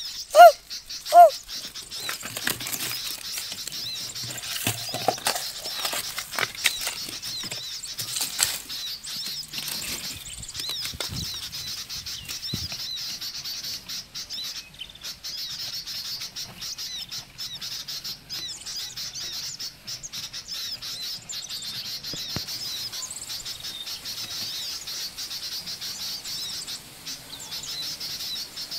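Outdoor chorus of small birds chirping in a steady high twitter, with scattered knocks and rustling against a hollow tree trunk. It opens with a couple of loud, high, arching animal cries that stop about a second in.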